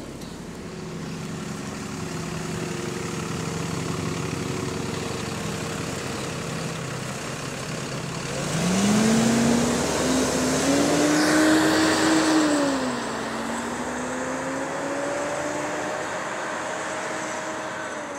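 Double-decker bus idling at a stop, then pulling away about eight seconds in: its engine and cooling fan rise into a louder whine that bends up and down, then ease to a steadier, fading whine as the bus drives off.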